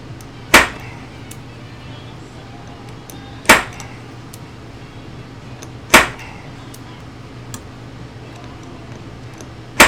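Hammer blows on a rivet former, peening over a rivet on a toy train car's metal chassis set on a wood block: four sharp strikes two and a half to four seconds apart, each with a brief ring.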